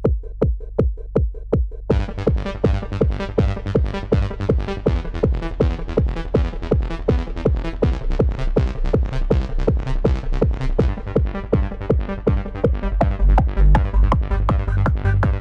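Techno played on a Yamaha PSR-E473 keyboard's built-in sounds: a steady kick drum alone, then about two seconds in a dense synth pattern with hi-hat-like ticks joins over the beat. The bass grows heavier near the end.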